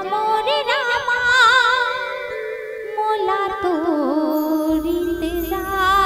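A female singer of a Chhattisgarhi devotional bhajan sings a wordless run, her voice sliding and quivering in fast ornaments over a held keyboard note.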